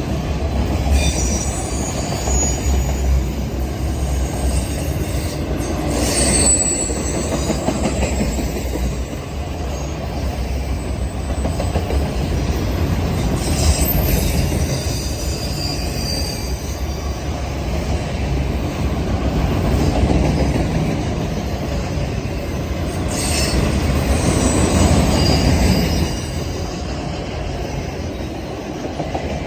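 Mixed freight train cars rolling past with a steady rumble of wheels on rail, and high wheel squeals that come and go several times.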